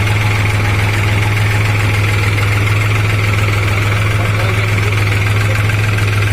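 New Holland TT4.55 tractor's diesel engine running steadily at idle, with a strong low hum.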